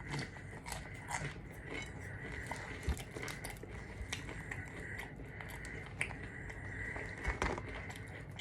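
A person chewing and biting into a KFC meal close to the microphone: steady mouth sounds full of small crackling clicks, with a couple of louder knocks about three seconds in and near the end.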